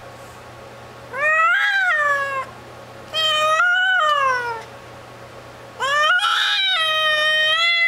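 Domestic mother cat yowling in labour while giving birth to a kitten: three long, drawn-out calls, each rising and then falling in pitch, the third still going at the end.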